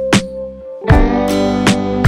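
Background music: strummed guitar over a steady beat, with a fuller chord coming in a little under a second in.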